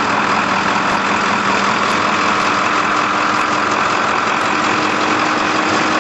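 An engine idling steadily, a constant running noise that does not change.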